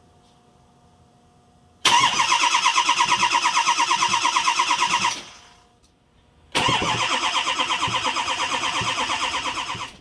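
Ford 6.0L Powerstroke V8 turbodiesel being cranked over by its starter, in two separate starts of about three seconds each with an even, rapid pulsing. The second begins about a second and a half after the first dies away.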